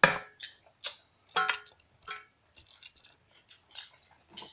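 Eating sounds close to the microphone: a run of short, sharp clicks and smacks at irregular spacing, roughly two or three a second.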